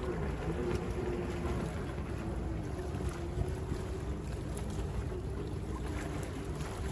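Steady outdoor rumble of wind and bay water, with small waves lapping. Through it runs the faint, slightly wavering drone of a motorboat's engine as it passes across the bay.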